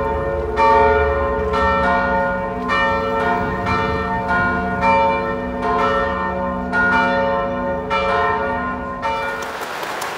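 Church tower bells pealing: several bells struck in turn, roughly one stroke a second, each note ringing on under the next. Near the end the bells give way to audience applause.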